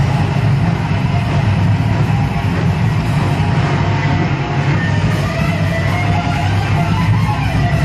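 Heavy metal played loud and without a break: distorted electric guitar over drums, with a heavy bass-heavy low end.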